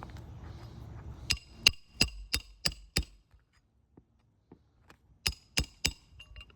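Hammer striking a steel snake tool to break the seal under asphalt roof shingles: six quick metallic strikes with a short ring, a pause, then three more.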